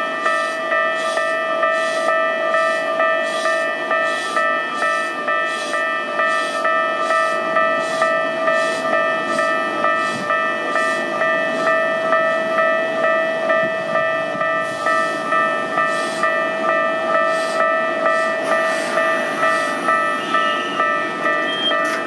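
Japanese level-crossing warning bell ringing over and over at just under two strikes a second, the signal that the barriers are down. Beneath it a Toei 5300 series train rumbles past on the tracks.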